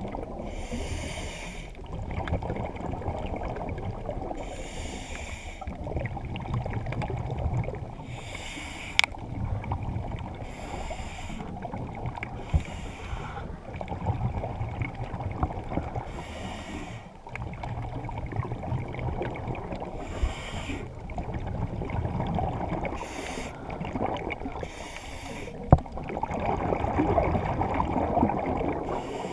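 Scuba diver breathing through a regulator underwater: a rush of exhaled bubbles about every three to four seconds over a steady low water rumble, with an occasional sharp click.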